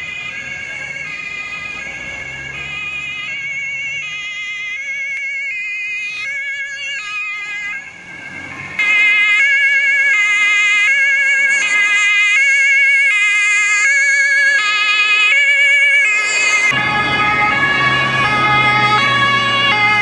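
German police two-tone siren (Martinshorn) sounding its alternating high-low tones. After a brief dip about eight seconds in, the same two-tone siren comes in much louder, its tones wavering slightly. A low rumble joins near the end.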